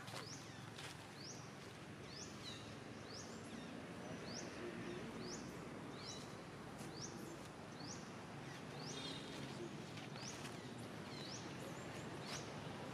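A bird calling over and over: the same short, high chirp repeats evenly about one and a half times a second, over a steady outdoor background hiss.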